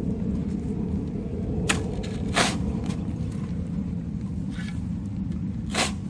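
A round-point shovel cut into sandy soil three times, each a short scraping crunch, over a steady low rumble.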